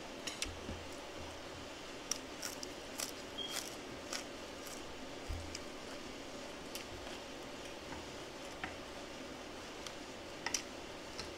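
A person eating close to the microphone: chewing, with scattered sharp clicks and smacks and a few soft thuds, over a steady faint hum.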